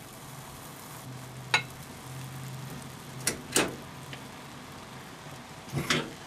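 Kitchen preparation sounds: a few sharp taps, one alone, then two close together, then a quick double near the end, over a steady low hum and hiss.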